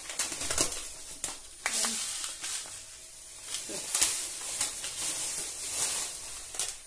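Rustling and scattered light clicks of kitchen handling as black nigella seeds are added onto a heap of flour in a wooden bowl. The sharpest click comes about four seconds in.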